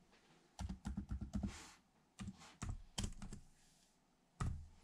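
Keystrokes on a computer keyboard as a password is typed in, clicking in short irregular runs with brief pauses between them.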